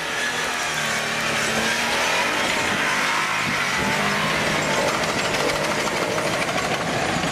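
Jeep Wrangler JKU engine revving hard under load on a steep dirt climb, its tyres spinning and throwing dirt.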